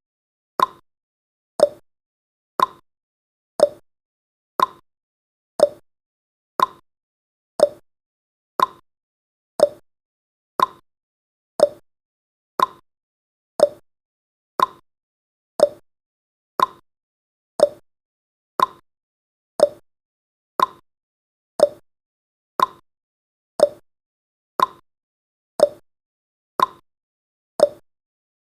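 Countdown timer's ticking sound effect: one short, sharp clock-like tick every second, each dying away quickly.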